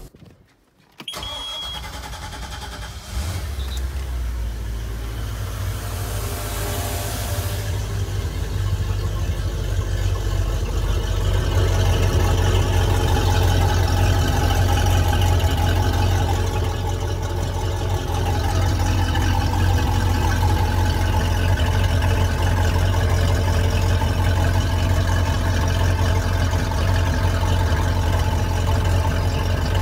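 MerCruiser 350 MAG 5.7-litre V8 starting about a second in, then idling steadily while running out of the water on a flushing muff, drawing gravity-fed antifreeze through its raw-water cooling passages.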